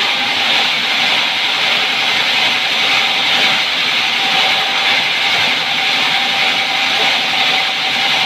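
Sawmill band saw cutting timber: a loud, steady rushing noise with a faint whine.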